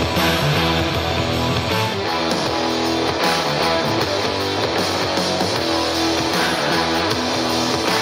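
Guitar-led music with strummed guitar and bass, played back through a Marshall portable Bluetooth speaker as a sound test.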